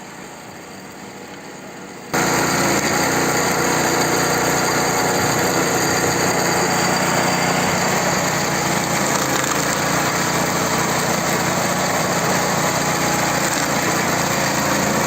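Powered machinery running steadily. A quieter hum gives way abruptly, about two seconds in, to a loud, even machine noise with no clear rhythm.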